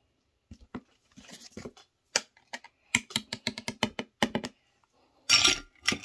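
Light, irregular clicking and tapping of kitchen utensils and dishes being handled, then a louder scraping rustle about five seconds in.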